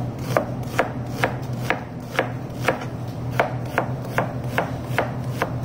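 Knife slicing an onion into thin slices on a plastic cutting board: a steady rhythm of sharp knife strikes on the board, about two a second.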